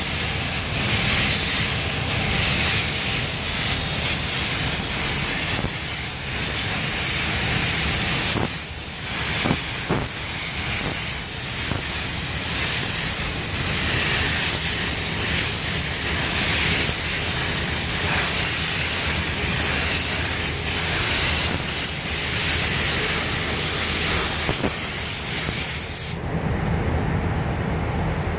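Gravity-feed paint spray gun hissing as compressed air atomises paint, over a steady low rumble. The hiss breaks briefly about nine seconds in and stops about two seconds before the end, leaving only the rumble.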